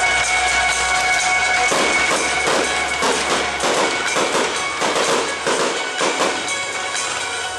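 Fireworks display over a music soundtrack: sustained music throughout, joined about two seconds in by dense, rapid crackling and popping of fireworks.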